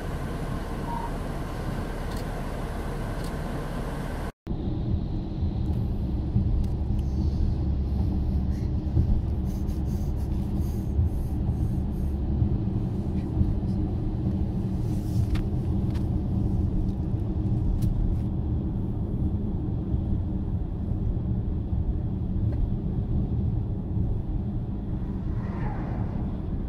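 Steady low road and engine rumble heard inside a car driving along a highway, after a short break in the sound about four seconds in. Near the end an oncoming motorhome goes by with a brief falling whoosh.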